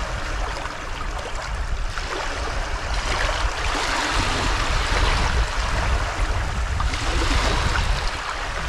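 Muddy estuary water washing in over a mud bank and running through the gullies, swelling into a frothy surge about three to six seconds in.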